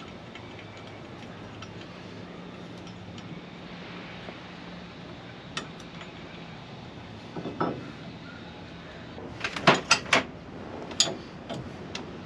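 Metallic clinks and knocks of hand tools and metal parts being handled at a truck's steering column, scattered at first, with a loud cluster of three or four sharp strikes about ten seconds in. A steady low hum runs underneath.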